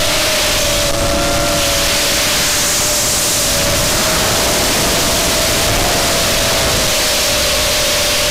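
FPV quadcopter's brushless motors and propellers whining in flight under a steady rush of wind noise on the onboard camera's microphone. The pitch of the whine wavers slightly with the throttle.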